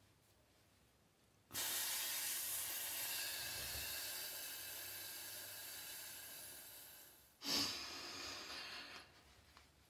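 A long, steady hissed exhalation on an 's', slowly fading as the breath runs out over about six seconds, then a second, shorter hiss that starts sharply. It is a voice-training breathing exercise done on a controlled out-breath.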